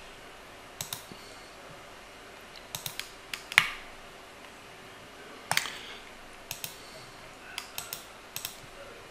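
Scattered sharp clicks from a computer mouse and keyboard, about a dozen, some in quick pairs, the loudest about three and a half seconds in.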